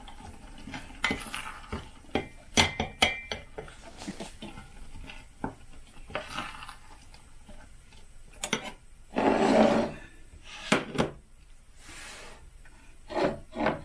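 Wooden spoon stirring thick cooked cranberries in a stainless steel saucepan, knocking and clinking against the pot's rim and sides in scattered strokes. There is a louder, longer scrape about nine seconds in, and the pan is shifted off the electric hot plate near the end.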